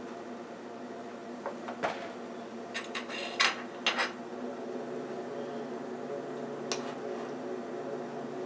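Kitchen handling sounds: a handful of sharp clinks and knocks of a spoon and a stainless steel pan, clustered about two to four seconds in, with one more near the end, over a steady low hum.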